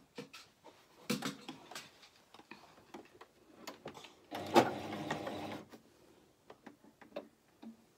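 Toyota electric sewing machine stitching two interfaced jersey strap pieces together in one short run of about a second and a half, near the middle. Scattered clicks and rustles of fabric being handled at the machine come before and after the run.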